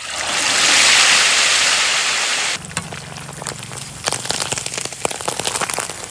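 Hot oil in a wok hissing loudly as a bowlful of small whole fish goes into it. After about two and a half seconds it drops to a steady crackling sizzle with scattered sharp pops as the fish deep-fry.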